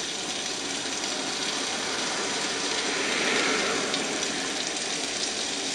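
Streaky bacon sizzling in a frying pan: a steady hiss that swells briefly about three seconds in.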